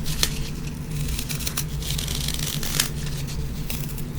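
Crumbly foam block being crushed and broken up by hand close to the microphone: a dense run of crackling and crunching with many sharp little snaps.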